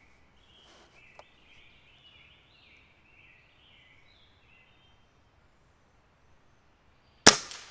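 A bird chirps faintly. Near the end comes a single shot from an Air Arms TX200 MkIII underlever spring-piston air rifle: one sharp crack that dies away quickly.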